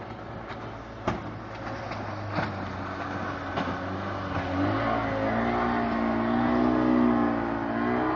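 Speedboat engine passing close by: it grows louder from about four and a half seconds in, its pitch wavering, and is loudest around seven seconds in. A few sharp clicks come in the first half.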